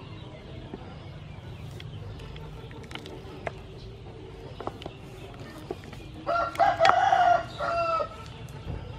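A rooster crows once, starting about six seconds in, a call in several parts ending on a higher note; it is the loudest sound. Before it, faint scattered clicks of a wooden ladle against a metal pot as soup is served.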